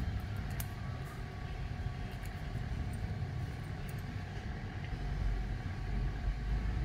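A steady low rumble that swells about five seconds in, with a few faint sharp clicks over it.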